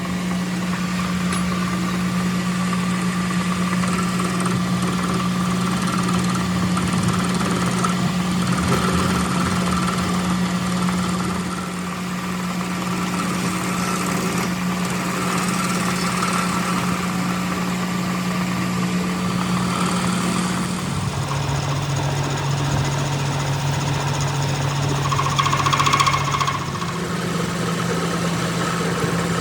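A motor running steadily with a low hum. Its pitch drops about two-thirds of the way through and rises again near the end.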